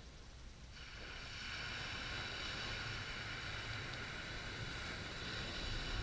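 Small wave breaking and washing up the beach on a calm sea: a hiss of surf sets in about a second in and runs on over a low rumble.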